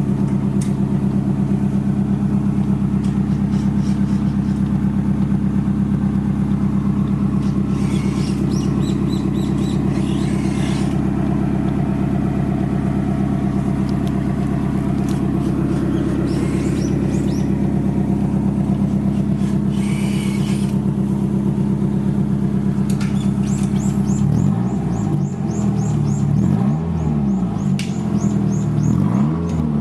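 Nissan 180SX's SR20DET turbocharged 2.0-litre four-cylinder idling steadily through its exhaust, then revved in a few quick blips that rise and fall near the end.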